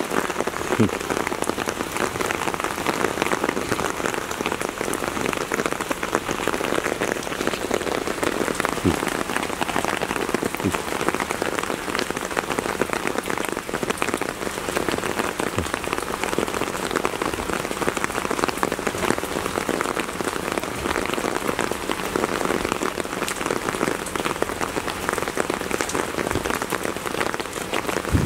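Steady heavy rain falling, with many sharp ticks of individual drops striking nearby surfaces.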